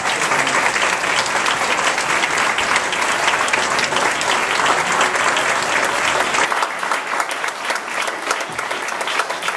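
Large audience applauding, many hands clapping together. About six and a half seconds in, the clapping thins and single claps stand out more.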